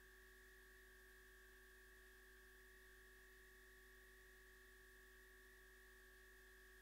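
Near silence with a faint, steady electrical hum and thin whine.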